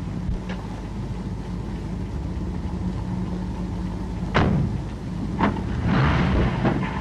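Car engine idling with a steady low hum, two sharp car-door slams about a second apart a little after halfway, then louder engine noise as it moves off.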